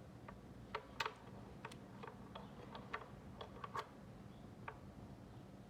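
Light, irregular clicks and taps, about a dozen over five seconds, from small metal parts being handled: the billet aluminium oil thermostat and its screws being picked up and fitted.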